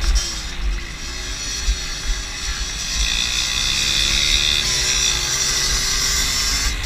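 Small 50cc moped engine running under load off-road, its buzzing pitch rising and falling with the throttle and getting louder from about three seconds in, with wind buffeting the microphone.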